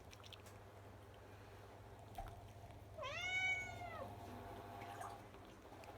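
A cat meowing once, about halfway in: a single call of about a second that rises and then falls in pitch.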